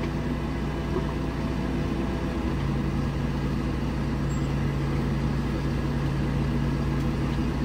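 Heavy construction equipment's diesel engine running steadily, its pitch dropping slightly about two and a half seconds in.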